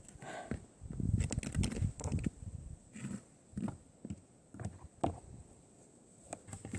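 Plastic toy animal figures being handled and set down, giving scattered light clicks and soft knocks, with a brief pitched sound near the start.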